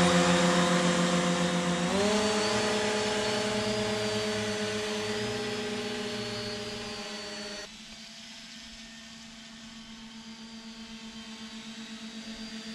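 Three-motor radio-controlled model hovercraft's lift fans and rear propeller running at speed, a steady pitched whine that steps up in pitch about two seconds in and fades as the craft moves away. It drops sharply near the middle, then comes back as a pulsing hum that grows louder near the end.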